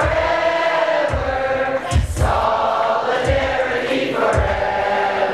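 A group of voices singing a chant together over a hip-hop backing track, with a heavy beat about once a second.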